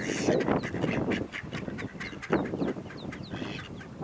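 Mallards quacking in short, rough calls, loudest at the start and again about two seconds in, with many tiny high, falling peeps from mallard ducklings in between.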